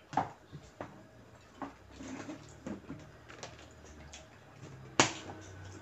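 Large plastic storage tub being handled: scattered light clicks and knocks, then one sharp plastic clack about five seconds in as the lid is pressed on.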